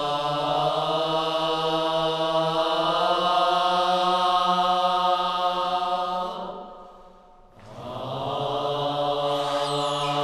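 A low chanted drone: one note held steady with a rich, buzzing overtone sound. It fades out for a breath about seven seconds in and then starts again on the same pitch.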